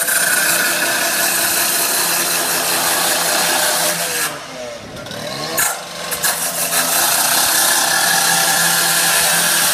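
Stihl two-stroke cut-off saw at high revs, its blade cutting through steel roof decking, loud and steady. A little before the middle the engine note drops and the cutting noise falls away for about a second, then the engine revs back up and the cut resumes.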